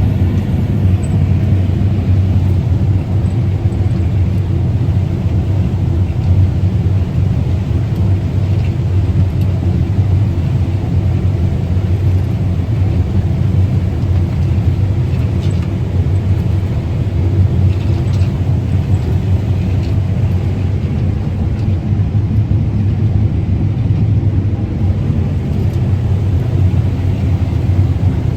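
Combine harvester running steadily while harvesting corn: a constant low drone of engine and threshing machinery, heard from inside the cab.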